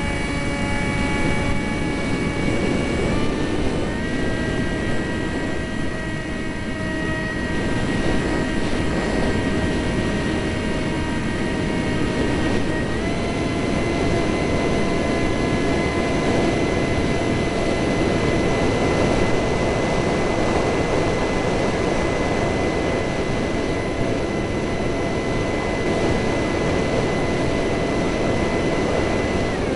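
The two EJ200 turbofan engines of a Eurofighter Typhoon running with a steady, high turbine whine over a dense roar. The whine steps up in pitch about four seconds in and again about thirteen seconds in. Wind is rumbling on the microphone.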